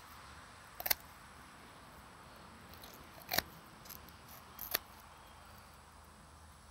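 Poultry shears snipping through a raw whole chicken's ribs beside the backbone, cutting the spine out to spatchcock the bird: a few short, sharp snips, the clearest about a second in and two more around three and a half and nearly five seconds.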